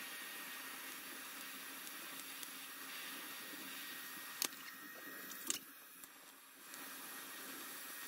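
TIG welding arc hissing steadily as the seam of a steel canister is welded, with two sharp clicks about four and a half and five and a half seconds in and a short quieter spell just after.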